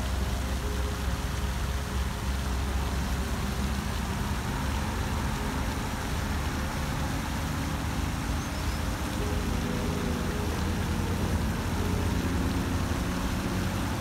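A floating pond fountain spraying and falling back onto the water, a steady rain-like hiss over a continuous low rumble.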